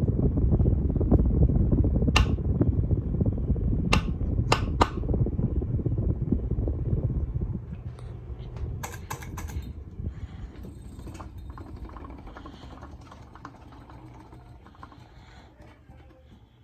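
CEC Casablanca Mercury copy ceiling fan running with a loud low rumble from its bad bearings, with a few sharp clicks. From about seven seconds in, the rumble fades gradually until it is faint near the end.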